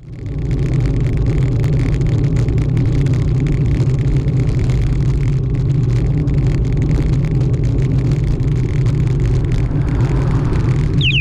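Steady low wind and road rumble on a bicycle-mounted camera while riding, with a van passing close by about ten seconds in.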